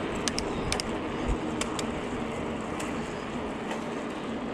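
Steady rushing noise of a bicycle being ridden along a trail, with a few sharp clicks, most of them in the first two seconds.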